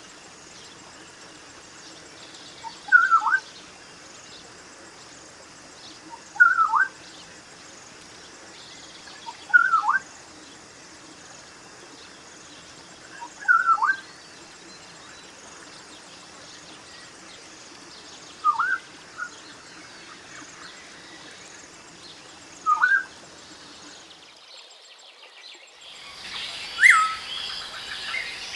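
Black-winged oriole calling: a short note repeated six times, about every three to four seconds. Near the end a different recording begins, with a louder call over a busier, insect-filled background.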